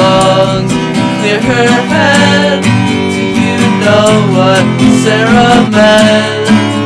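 Music: a song led by strummed acoustic guitar, with a melody line gliding above it.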